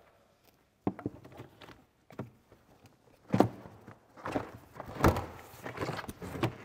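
Irregular knocks and thuds with some rustling as the frunk trim of a Tesla Model S is handled, the loudest knock about five seconds in.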